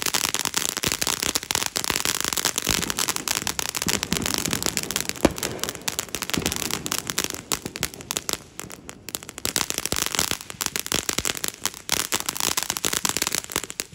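Ground fountain firework spraying sparks, with a loud, dense crackle of rapid small pops and one sharper pop about five seconds in. The crackle cuts off suddenly at the end as the fountain burns out.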